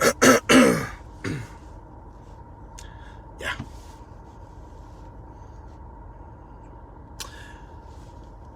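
A man's short breathy vocal bursts, three in quick succession in the first second and a half and a smaller one a couple of seconds later, then a quiet stretch with a faint steady hum.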